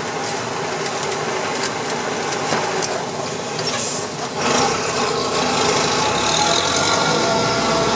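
The truck's MWM X12 diesel engine runs through an exhaust with its long tailpipe extension removed, which makes it louder. It dips briefly about four seconds in, then pulls harder and louder.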